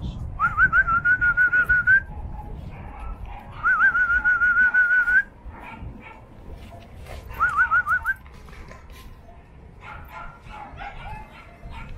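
A dog whining in high, wavering calls, three times. Each call opens with quick rising yelps and then holds a warbling note.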